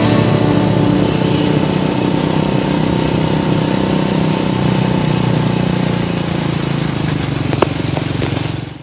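Small motorcycle engine running steadily while riding, with a single sharp click near the end.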